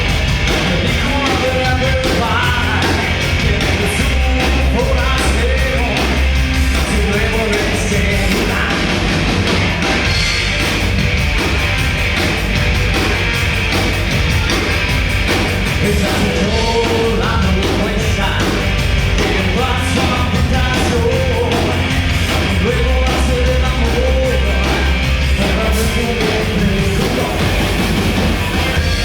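A rock band playing loud music live, with a sung lead vocal over the band throughout.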